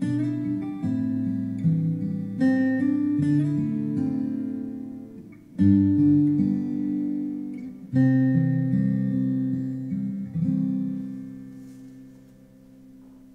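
Acoustic guitar music, plucked and strummed chords, with strong strums about six and eight seconds in, fading out near the end.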